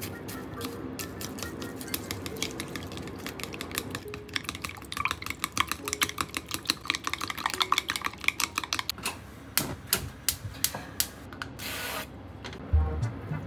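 Chopsticks beating eggs in a glass bowl: rapid clicking of the chopstick tips against the glass, fastest and loudest in the middle, then slowing to a few taps. A brief hiss comes near the end.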